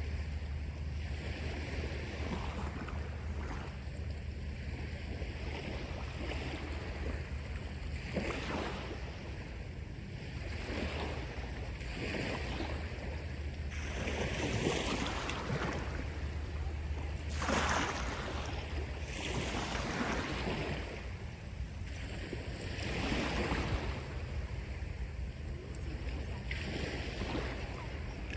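Sea waves breaking and washing up the shore, a rush of surf swelling every two to three seconds, over a steady low rumble.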